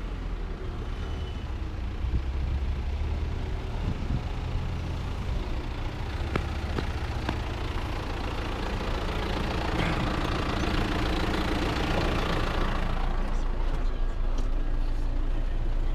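Diesel engine of a farm machine running steadily, with a louder stretch of rushing noise about two-thirds of the way through.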